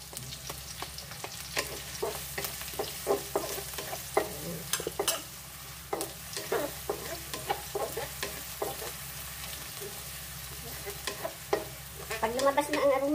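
Minced garlic and sliced onion sizzling in hot cooking oil in a wok while a wooden spatula stirs them, scraping and tapping against the pan in quick, irregular strokes: the garlic being sautéed with the onion.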